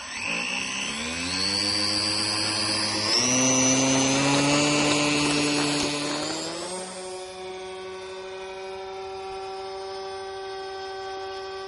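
The engine of a radio-controlled scale Mitsubishi J2M3 Raiden model is opened up for a take-off run. Its pitch climbs in steps over the first few seconds and it runs loudest at a high, buzzing pitch until about six seconds in. It then drops to a lower, steady note and gets fainter as the plane flies off.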